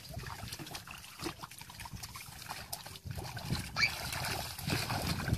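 Shallow muddy water splashing and sloshing as feet wade and hands grope through it, with scattered small splashes.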